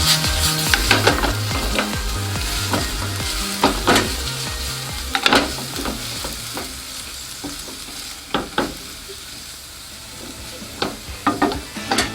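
Spaghetti and vegetables sizzling in sesame oil in a frying pan as they are stirred and tossed, with sharp clicks of a utensil against the pan. The sizzle dies down over the second half.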